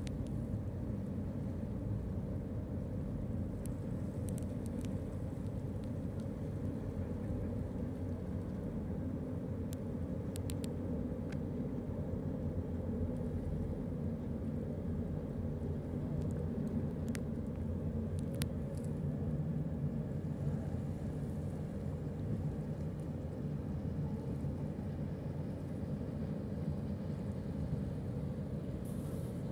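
Steady low drone of a large passenger ferry's engines as the ship passes across calm water.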